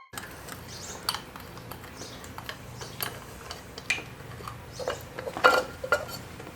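Metal engine parts and hand tools clinking and clattering during a teardown of a Porsche 944 engine. Sharp clinks come about once a second, with a louder cluster about five and a half seconds in, over a low steady hum.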